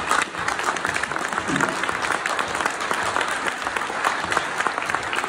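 Audience applauding: many people clapping steadily, with a voice calling out briefly about a second and a half in.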